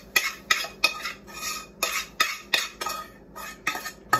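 A metal utensil clinking and scraping against a frying pan in quick repeated strokes, about three a second, as cooked pork chops are worked in and out of the pan.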